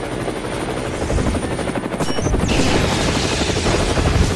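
Helicopter rotor sound effect: a fast, steady blade chop that grows louder, with a rushing hiss joining about halfway through.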